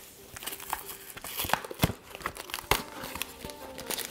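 A cardboard box being opened by hand: flaps and packaging crinkling and rustling, with scattered sharp crackles and taps.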